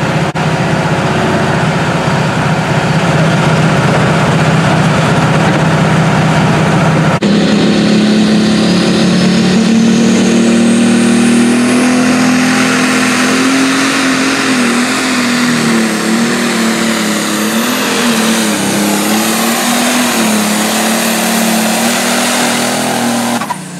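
Diesel pulling tractors running flat out under load: first one engine holding a steady pitch, then, after a cut about seven seconds in, a Case 2390 pulling tractor whose engine pitch wavers up and down as it drags the sled, with a high whine rising above it.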